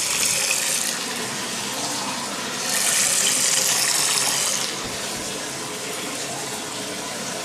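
Mixer tap running hard into a basin filled to its overflow with the plug shut, a steady splash of water that grows louder for a couple of seconds midway. The water is feeding the overflow to test its seal for leaks.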